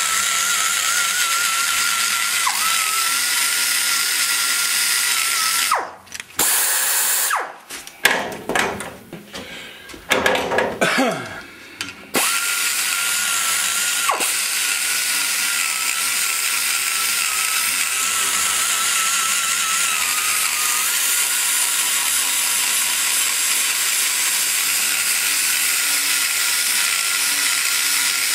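Die grinder with a flame-shaped double-cut carbide burr running at a steady high whine, grinding out the exhaust bowl of a cast-iron Chevy 186-casting cylinder head. About six seconds in it is let off and spins down and back up several times, then runs steadily again from about twelve seconds on.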